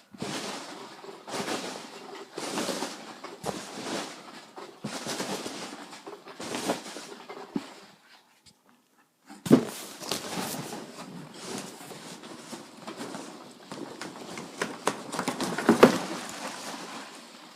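Styrofoam packing peanuts rustling and a cardboard box being handled as an item is lifted out, with scattered knocks and scrapes. It stops for a moment about eight seconds in and resumes with a sharp knock.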